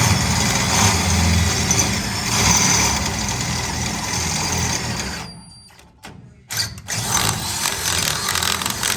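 Power drill motor running in two long bursts, cutting out for about a second around five seconds in before starting again.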